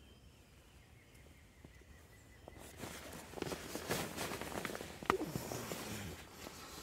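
Quiet for about the first two and a half seconds, then rustling and clicking, with one sharper crack about five seconds in.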